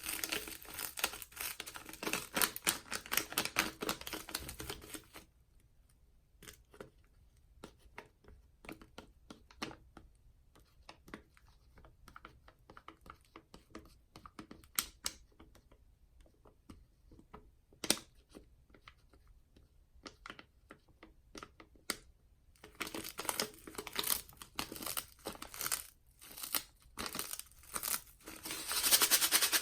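Soapy sponge being squeezed and worked, giving a dense wet crackling of lather and bubbles for about five seconds. Sparse pops and crackles follow, then the dense squeezing crackle starts again near the end.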